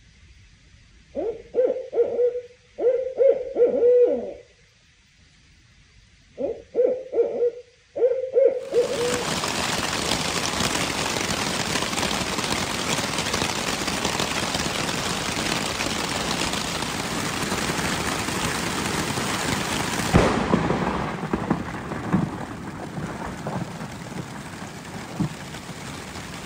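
An owl hooting in several short groups of hoots. Then, about nine seconds in, heavy rain starts suddenly, pouring steadily on the hammock tarp. About twenty seconds in, a single sharp crack of thunder rumbles off, and the rain is lighter after it.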